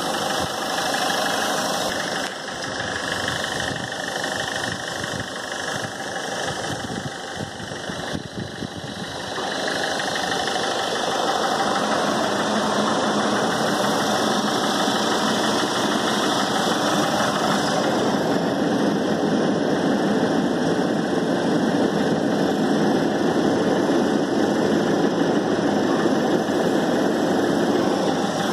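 Ford Figo's engine idling steadily during an HHO carbon clean, with the cleaning machine's hose feeding gas into it. The sound grows louder about ten seconds in and then holds steady.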